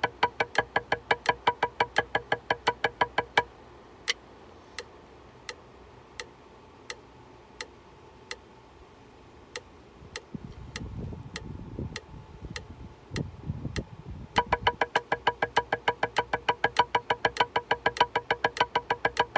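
Drumsticks playing a steady, even stream of strokes on a practice pad over a metronome clicking about 85 beats a minute. The strokes stop about three seconds in, leaving the metronome ticking alone with some low muffled noise, and start again near fourteen seconds in.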